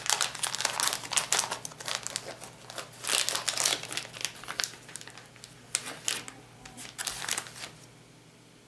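Crinkling of a plastic soft-bait packet being handled and opened: a rapid, irregular run of crackles that stops near the end.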